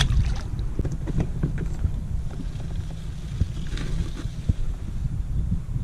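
A small sheepshead dropped back into the water with a splash at the start. Then light knocks and clicks of gear on the plastic kayak under a steady low wind rumble on the microphone, and about four seconds in a short rustle as the bait bucket lid is opened and a hand goes in among the fiddler crabs.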